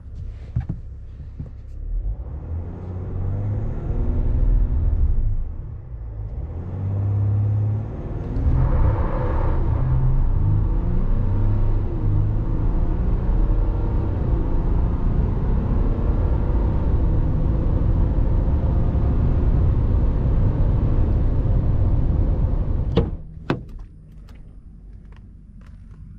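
Ram 1500 EcoDiesel's 3.0-litre turbodiesel V6, heard from inside the cab, accelerating hard: its pitch rises and drops as it climbs through the gears, with road noise building under it. About three seconds before the end the engine sound cuts off, leaving a few light clicks.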